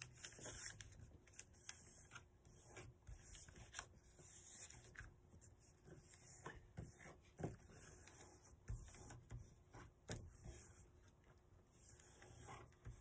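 Faint rustling, rubbing and small crinkles of a sheet of paper being folded and creased by hand, in scattered short touches.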